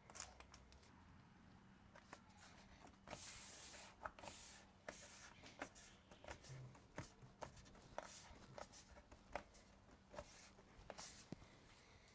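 Faint scratching, rustling and light clicks of hands working a car weather shield's adhesive tape: the tape liner being peeled away and the shield pressed onto the door frame.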